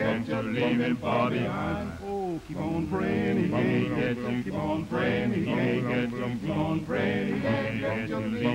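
Background music: a group of male voices singing unaccompanied, with sustained low harmony under a moving melody.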